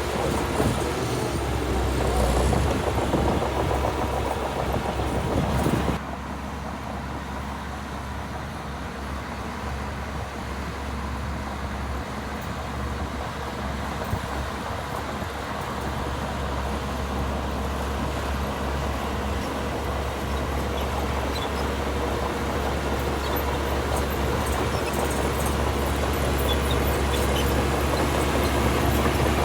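Heavy diesel engine of earthmoving machinery running with a steady low hum, with some clatter in the first few seconds. About six seconds in the sound drops suddenly, then slowly builds louder again.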